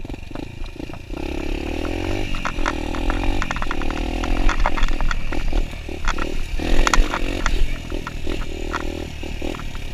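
Kawasaki dirt bike engine running under throttle, growing louder about a second in and then rising and easing off in stretches as the bike speeds along the trail, with sharp clattering knocks throughout.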